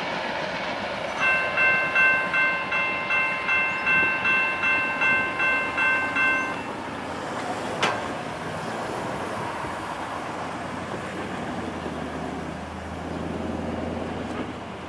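General Signals Type 2 grade-crossing bell ringing in rapid strokes, about two and a half a second, for about five seconds and then stopping: it rings as the crossing gates rise once the train has cleared. The rolling rumble of the departing freight cars continues underneath, with one sharp click about eight seconds in.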